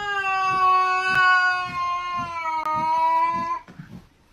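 Cat yowling: one long, drawn-out call at a nearly steady pitch that breaks off shortly before the end.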